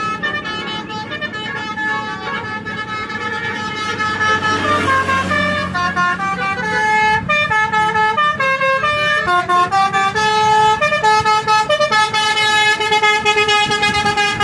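Basuri telolet multi-tone air horns on a convoy of buses playing quick melodic runs of notes that step up and down, over the low rumble of the bus engines. The horns get louder from about four seconds in.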